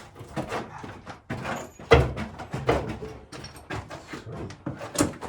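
Irregular knocks and clatter of wood and tools being handled at a workbench, with a heavier thump about two seconds in and a sharp click near the end.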